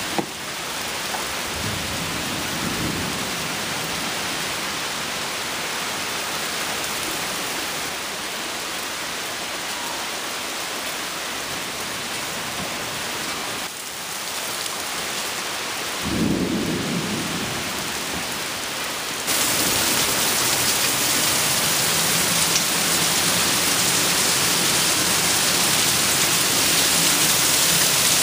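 Heavy thunderstorm rain, a steady hiss of downpour, with a low roll of thunder a little past the middle. The rain suddenly gets louder about two-thirds of the way through, with water pouring off the roof.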